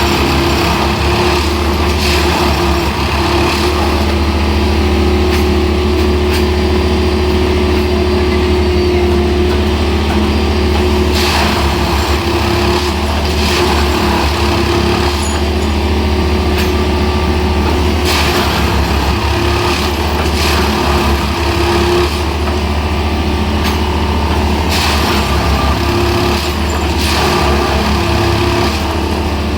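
Plasser & Theurer track maintenance machine working on the track, its diesel engine running steadily with a constant hum, and a few short bursts of noise every several seconds.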